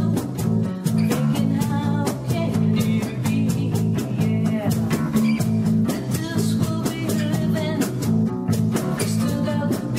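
A small acoustic band playing live: strummed acoustic guitars over a steady djembe hand-drum beat, with a woman singing the melody.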